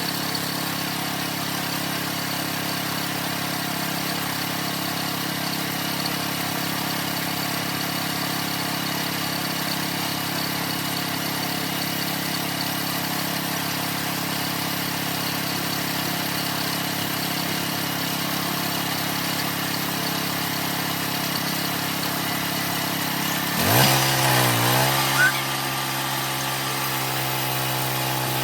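Homemade sawmill's engine running steadily at idle, then about 24 seconds in throttled up: the pitch dips and climbs, louder for a moment, and it settles at a steady higher speed.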